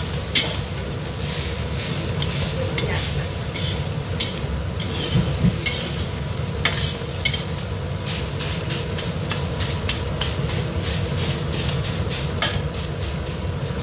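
Metal wok spatula scraping and clinking against a wok as leftover rice is stir-fried, with repeated irregular strokes over a steady sizzle.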